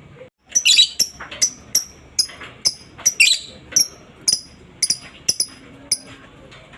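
Lovebird giving a rapid series of sharp, high chirps, about three a second, each dropping slightly in pitch, stopping shortly before the end.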